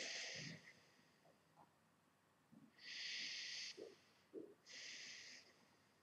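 A man taking slow, deep belly breaths: three long breath sounds, one at the start, one about three seconds in and one about five seconds in, each under a second, with quiet in between.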